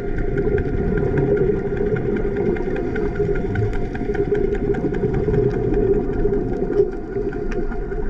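A boat engine heard through the water as a steady drone, with a light crackle of many small clicks over it.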